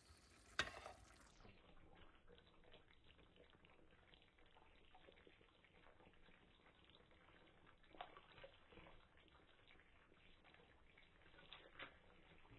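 Near silence, with one sharp click about half a second in and two faint clicks later: a metal spoon knocking against an earthenware pot as thick soup is stirred and lifted.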